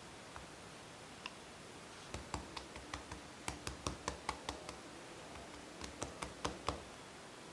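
Quick runs of light, sharp taps or clicks, about five a second: a longer run about two seconds in, then a shorter one near the end.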